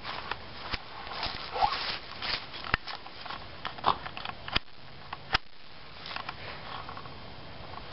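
Handling noise from a handheld camera moved close over grass and clothing: rustling with scattered sharp clicks, the loudest in the first half, then softer rustling.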